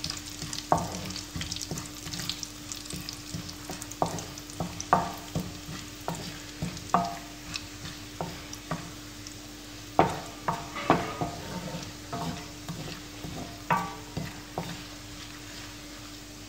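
Garlic and whole spices sizzling in hot desi ghee while a wooden spoon stirs them around the pan, knocking and scraping against it roughly once a second. A steady low hum runs underneath.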